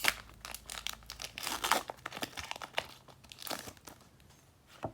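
A Pokémon TCG booster pack's foil wrapper being torn open and crinkled by hand, in irregular crackling bursts, loudest at the very start, about a second and a half in, and again near three and a half seconds.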